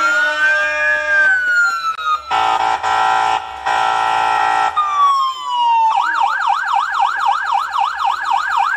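Electronic siren sound effect played through PA loudspeakers for dancing: a slow rising and falling wail, then a steady blaring tone, then a fast warbling yelp about four times a second near the end.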